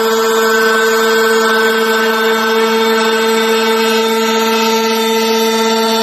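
Five-axis machining center milling a casting with a D200 disc (T-slot) milling cutter: a loud, steady machining whine holding several fixed pitches.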